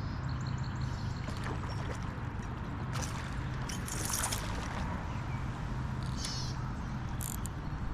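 Steady rush of flowing creek water, with a few brief high-pitched sounds over it.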